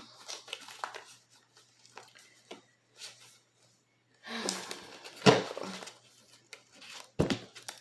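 Tarot cards being handled: scattered soft clicks, then a brief rustle of cards about halfway through with a sharp snap, and another sharp click near the end.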